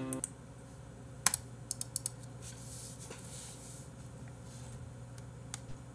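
Scattered clicks of a computer keyboard and mouse, coming singly and in small clusters over a low steady hum.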